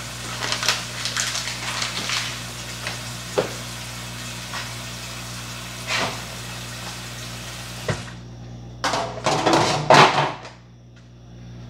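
Kitchen handling sounds while a pan is fetched: scattered knocks and rustling, then a louder burst of crinkling and clatter about nine to ten seconds in, over a steady low hum.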